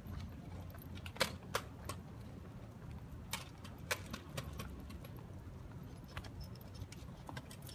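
Irregular sharp clicks and light jingling over a low steady rumble: footsteps and a kick scooter's small wheels on a concrete sidewalk.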